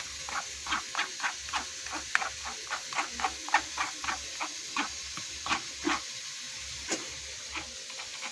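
A spoon clicking and scraping against a sieve while blended mango juice is strained, about two to three light taps a second over a steady hiss.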